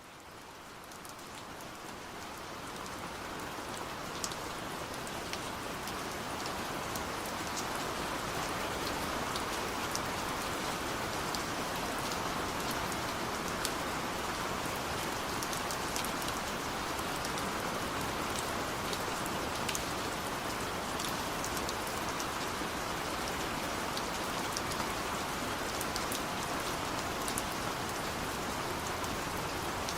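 Steady rain falling, with many scattered sharp drop ticks over an even hiss. It fades in over the first several seconds, then holds level.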